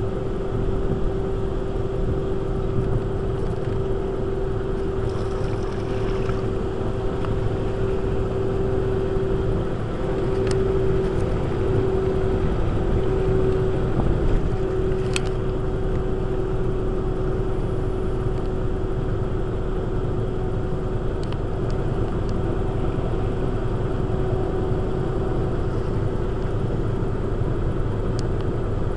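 Electric boat drive running steadily while the boat cruises slowly, a constant hum-like tone over a steady rush of water and air noise.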